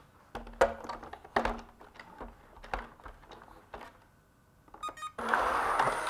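Knocks and clicks of an ILIFE V7s Plus robot vacuum being handled and turned over on a table, then a quick run of electronic beeps just before five seconds in as it switches on. Its fan and brush motors then start running with a steady whir: the reassembled robot working, its main brush turning again on a replacement motor.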